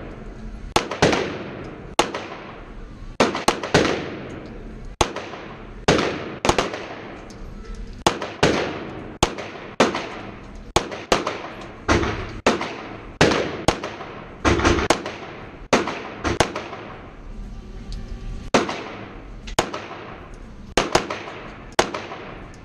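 Semi-automatic pistol firing a long string of shots, about one or two a second and often in quick pairs, each shot ringing with the echo of an indoor range.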